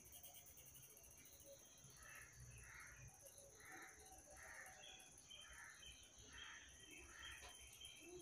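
Near silence with faint outdoor ambience: a steady high drone, and from about two seconds in a soft call repeated about once every three-quarters of a second.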